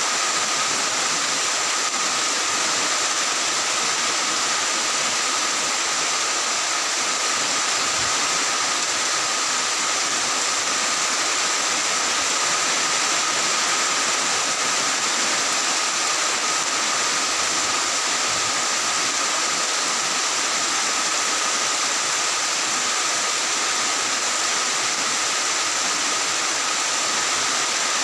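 Rain falling steadily on clay-tile roofs, a constant even hiss that neither swells nor fades.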